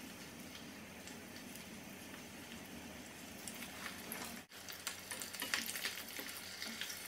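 Breaded prawns deep-frying in a pot of hot oil: a steady, fairly faint sizzle, with more frequent small crackles and pops in the second half.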